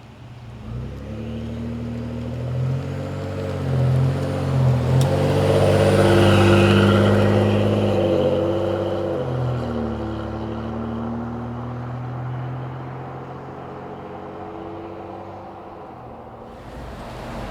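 Twin-turbo 3.5 L EcoBoost V6 of a Ford Expedition / Lincoln Navigator fitted with an SPD turbo whistle exhaust, driving past. The exhaust note swells to its loudest about six seconds in and then fades away, with a thin high turbo whistle rising over it.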